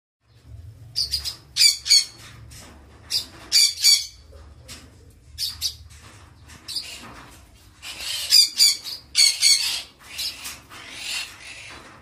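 Eclectus parrots squawking: a run of short, harsh calls, often in quick clusters of two or three.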